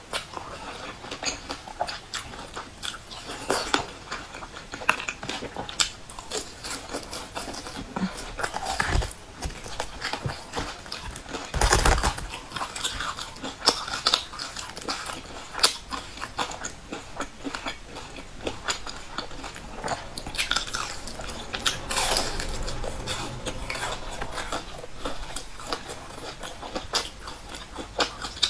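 Close-up eating sounds: crunching bites and chewing of a crisp fried pastry, with two louder crunchy bites, about twelve seconds in and again near twenty-two seconds.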